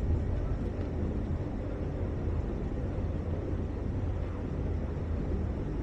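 River tour boat's engine running with a steady low drone, heard from on board.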